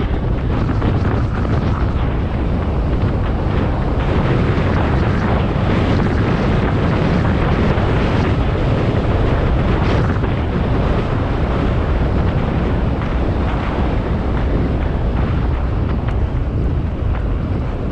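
Wind buffeting the microphone: a steady, loud rumble and hiss.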